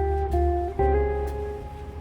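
Background music: a melody of plucked guitar notes over a steady bass.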